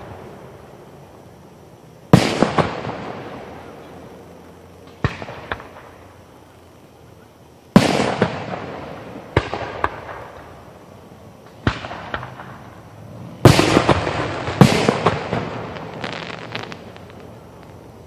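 Aerial fireworks shells bursting: about seven loud bangs a few seconds apart, each fading away slowly over a second or two, with smaller pops and crackles after several of them.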